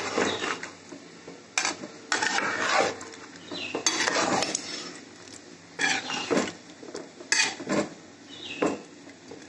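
A long metal ladle stirring a thick chicken korma in a metal cooking pot, scraping and clinking against the pot's sides and bottom in a run of irregular strokes.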